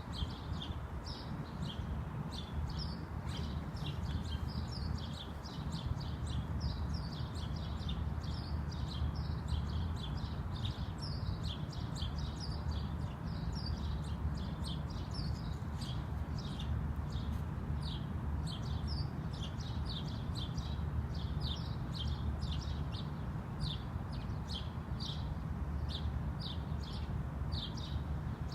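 Birds chirping continuously, short high notes repeating a couple of times a second, over a steady low rumble.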